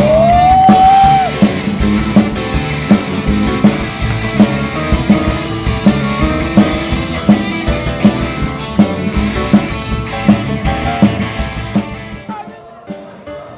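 Live rock and roll band playing an instrumental break: drum kit keeping a steady beat under electric guitar and bass, with one pitched note sliding up and held for about a second at the start. Near the end the drums and low end drop away, leaving lighter picked notes.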